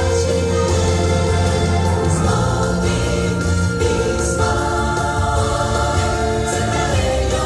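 Parade song playing loud and continuous: pop music with a group of singing voices.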